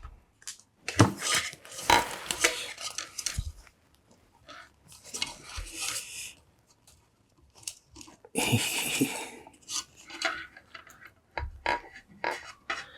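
Handling noise of fingers working a thin wire into a small toy: irregular small clicks, scrapes and rustles, in bunches about a second in and again past the middle.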